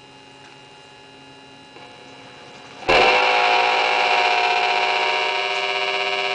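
Electric guitar played through a ring modulator: a faint steady drone of clashing tones, then a loud note struck about three seconds in that rings on with harsh, inharmonic overtones.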